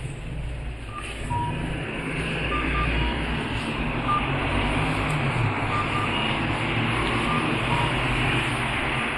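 Road traffic: a motor vehicle passing close, its engine and tyre noise growing louder about a second in, with short high electronic beeps here and there, some in pairs.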